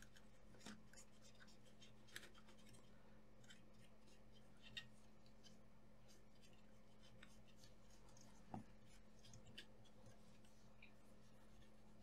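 Near silence: a cotton swab faintly scrubbing flux off a laptop motherboard around the charging port, with a few soft ticks and scratches, the clearest about eight and a half seconds in.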